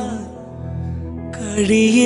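Slow, sad Malayalam film song: a sung note trails off into a soft stretch of low sustained accompaniment, then the music fills out and the singer comes back in about a second and a half in.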